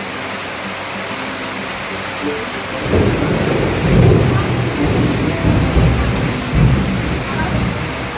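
Steady rain falling, with a rolling rumble of thunder. The thunder swells about three seconds in and rolls on in several peaks for about four seconds before fading.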